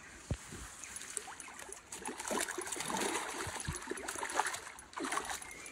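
A hooked trout thrashing at the water's surface as it is drawn in to the bank, in irregular splashes that grow busier and louder about two seconds in.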